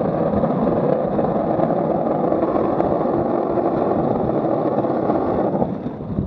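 Wheels of a Buggy Rollin wheelsuit rolling fast on asphalt: a steady, gritty rolling noise that drops to a lighter level about five and a half seconds in.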